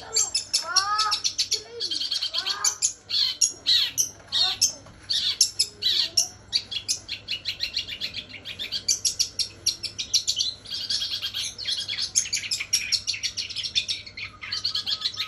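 Long-tailed shrike (cendet) singing a fast, unbroken chattering song made of mimicked Eurasian tree sparrow chirps, with a few lower, arching notes near the start and again near the end.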